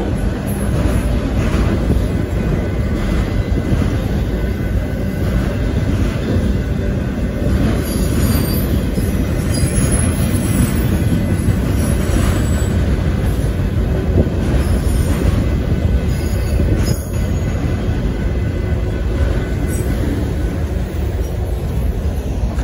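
Kansas City Southern de México freight train of autorack cars rolling past close by: a steady, loud rumble and rattle of wheels on rail, with a faint high wheel squeal at times.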